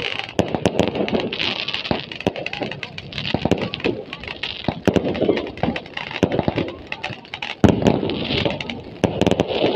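Aerial fireworks going off in a rapid string of sharp bangs and crackles, with the loudest bang about two-thirds of the way through.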